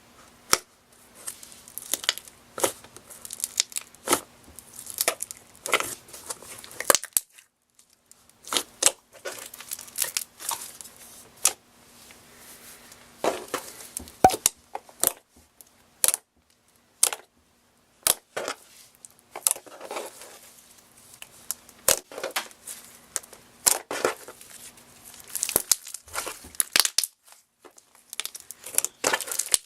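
Floam, a slime packed with foam beads, being squeezed and pressed by hand: irregular crunchy crackles and clicks from the beads, with a couple of short pauses.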